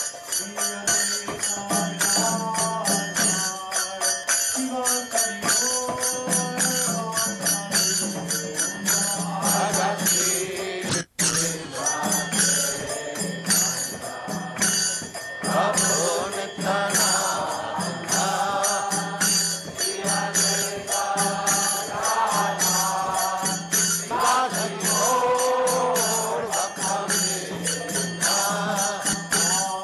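Devotional kirtan chanting: a singing voice over brass kartal hand cymbals struck in a quick, steady rhythm and a steady low drone. The sound drops out for a moment about a third of the way in.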